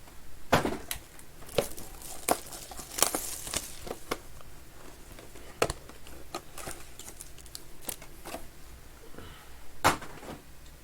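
Trading-card boxes and packs being opened by hand: plastic wrapper crinkling and tearing, with scattered sharp snaps and clicks, the loudest near the end.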